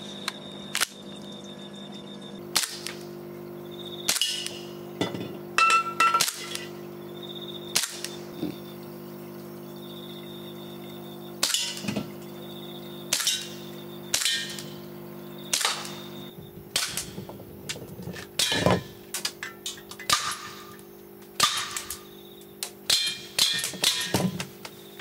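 Gas blowback airsoft pistol firing single shots, each a sharp crack with the slide cycling, spaced irregularly and coming in quicker strings toward the end. A steady low hum runs underneath.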